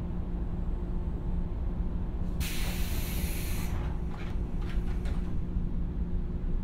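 A stopped 115-series electric train hums steadily at the platform. A little over two seconds in, compressed air hisses loudly out of its pneumatic system for about a second, followed by a few shorter, fainter hisses.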